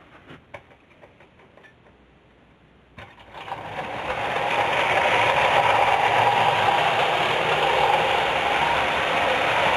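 Bassett-Lowke clockwork O gauge tinplate locomotive and carriages. After a few faint clicks, there is a sharp click about three seconds in. The clockwork motor's whirr and the wheels' rattle on the tinplate track then build up over a second or so into a steady run.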